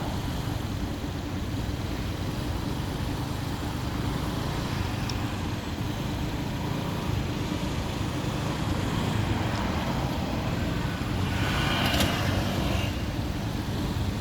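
Road traffic at a street crossing: a steady rumble of passing cars, swelling slightly near the end as a vehicle goes by.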